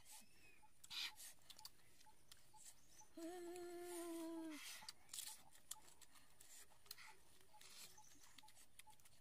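A person humming a single appreciative "mmm" of about a second and a half, a little over three seconds in, amid faint clicks and smacks of chewing.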